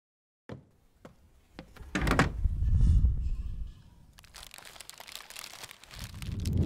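Sound-effect track for kitchen B-roll, no music: a few soft clicks, then a heavy low thud and whoosh about two seconds in, followed by a zip-top plastic bag of frozen fruit rustling and crinkling, swelling near the end.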